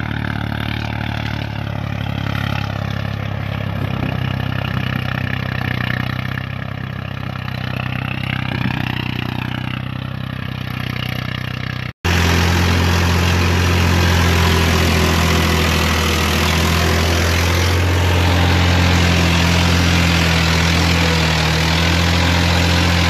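Farm tractor's engine running steadily under load, heard from inside its cab while it pulls a plough. Before an abrupt cut about twelve seconds in, an engine runs more quietly, its pitch wavering a little.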